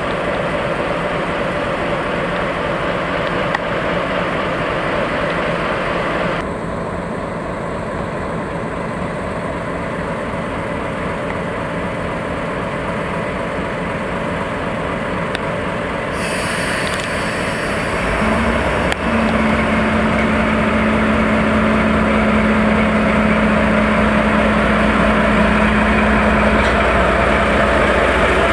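DE10 diesel-hydraulic locomotive's V12 diesel engine running steadily, then louder from about two-thirds in with a deeper rumble and a steady drone as it powers up to move off slowly.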